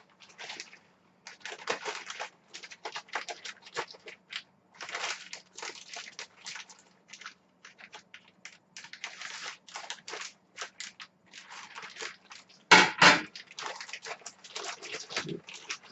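Plastic packaging crinkling and rustling in irregular bursts as a mailer bag is torn open and handled, with one louder crackling burst about 13 seconds in.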